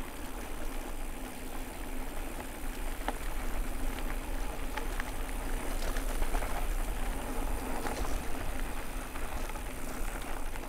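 Haibike SDURO HardNine 1.5 e-mountain bike being ridden, heard from the rider: wind rumbling on the microphone over tyre noise, with scattered small clicks and rattles from the bike.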